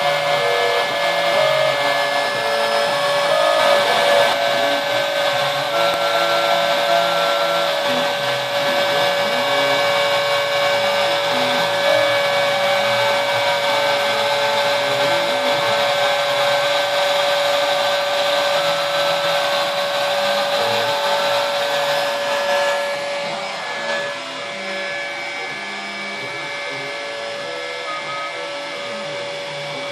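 Homebuilt CNC router v-carving pine: the router spindle runs steadily with a constant high whine while the stepper motors hum in lower tones that keep shifting in pitch as the axes move. The sound drops somewhat in level about three quarters of the way in but keeps running.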